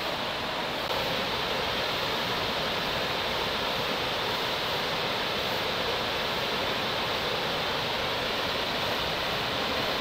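Waterfall pouring steadily, its water falling as fine spray: an even rushing hiss that gets slightly louder about a second in.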